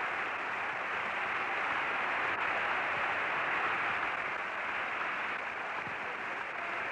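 Audience applause, a steady wash of clapping that eases slightly near the end.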